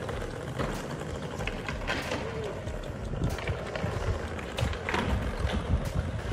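Skateboards rolling on stone paving: a low steady rumble with scattered sharp clacks.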